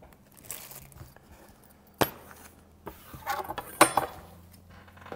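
Microphone accessories being handled and set down on a table: a sharp click about two seconds in, then a short cluster of clicks and clinks near the four-second mark.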